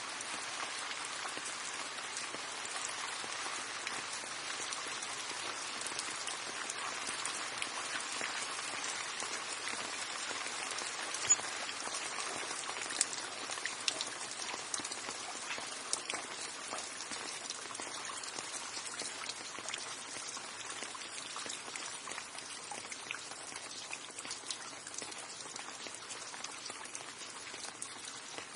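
Steady rain falling, a dense even hiss of drops on a surface with a few louder single drips around the middle, easing slightly near the end.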